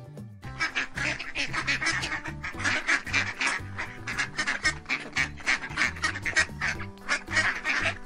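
Mallard ducks quacking in a rapid, continuous chatter, starting about half a second in.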